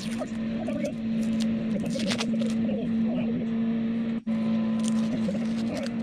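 Blue masking tape being peeled off a painted bowling pin by hand, with short crackling rips about two seconds in and again around five seconds in. A steady low hum sounds underneath throughout and is the loudest sound.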